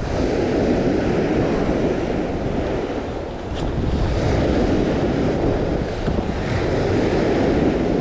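Sea surf washing onto the shore, with wind rumbling on the microphone; the wash eases off about three seconds in, then builds again.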